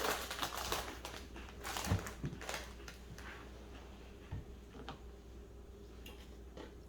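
Someone crunching crunchy chips: irregular crackling and crisp clicks, busiest in the first few seconds, then only a few faint clicks.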